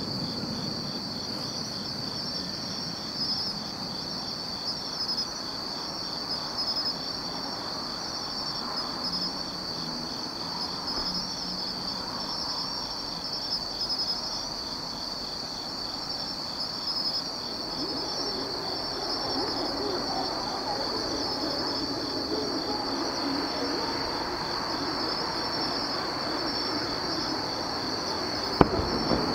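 A steady, high-pitched chorus of crickets chirping, with one sharp bang of a firework shell bursting near the end.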